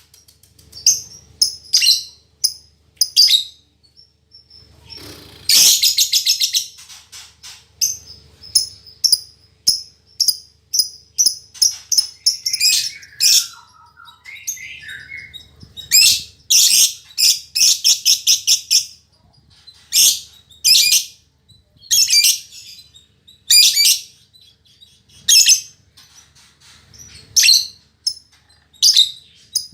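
Female lovebird chattering in loud bursts of rapid, high-pitched chirps and screeches, separated by short pauses, with a few lower gliding notes about halfway through.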